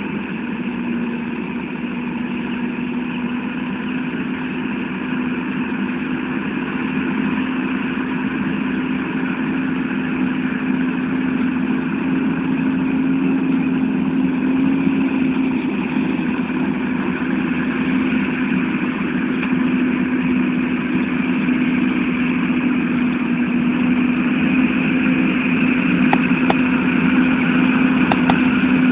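John Deere 7920 tractor's six-cylinder turbo diesel running at a steady pitch under the load of a six-furrow plough, growing gradually louder.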